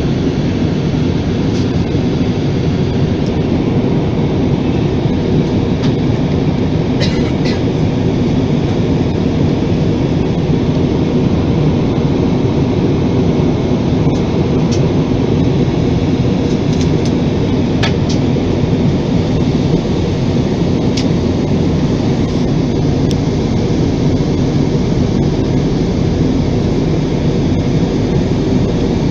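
Steady engine and airflow noise inside a jet airliner's cabin in flight, low and even throughout, with a few faint ticks.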